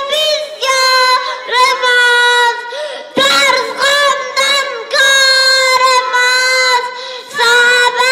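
A boy singing a song into a handheld microphone, in phrases of long held high notes with short breaks between them.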